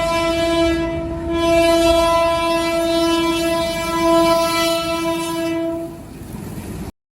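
Train horn sounding one long, steady blast that stops about six seconds in, leaving a brief rumble before the sound cuts off abruptly.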